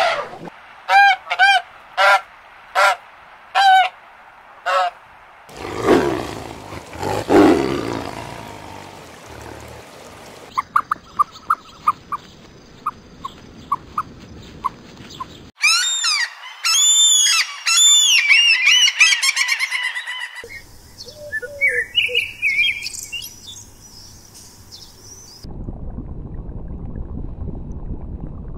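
A string of different animal and bird calls that change every few seconds. It opens with about six loud repeated calls, then has a low rumbling stretch, runs of short chirps and high calls, and ends in a steady rushing noise.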